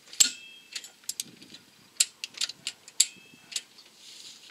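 Ratchet wrench on the crankshaft pulley bolt of a Peugeot 206 HDi, clicking as the bolt is tightened to 40 N·m. The clicks are sharp, metallic and irregular, and the loudest ones, about a quarter of a second in and about three seconds in, ring briefly.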